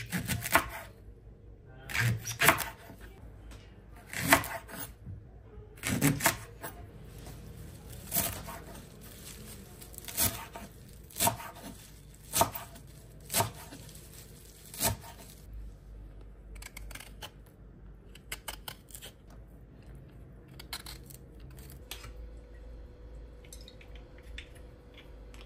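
A series of sharp knocks and clicks from objects being handled, about one every second or so, then lighter, quicker clicks in the second half.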